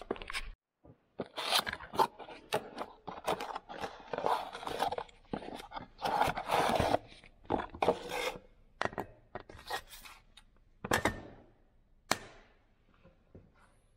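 Cardboard box being opened and unpacked, with crackling and scraping of cardboard and paper. Near the end come two sharp knocks as the metal heater element and plug are set down on a steel workbench.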